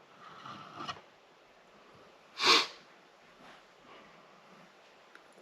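A single short, sharp sniff about two and a half seconds in, with faint handling noise in the first second.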